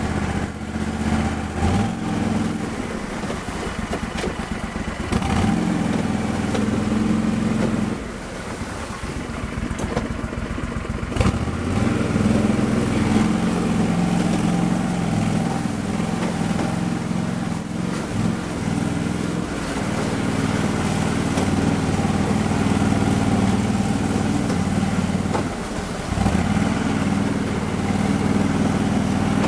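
Engine of an Argo HDI 8x8 amphibious ATV, a water-cooled Kohler, running steadily as the machine drives through swamp. It eases off several times, longest for about three seconds some eight seconds in, then picks up again.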